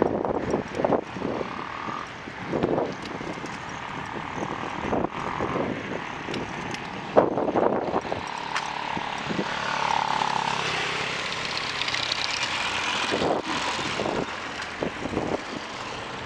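Wind buffeting the microphone and handling clatter from a camera held while riding a bicycle, with irregular knocks and rattles. A motor vehicle passes around the middle.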